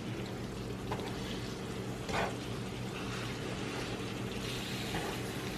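Seasoned ground beef sizzling in a frying pan as it browns, with a few light knocks of the utensil stirring it.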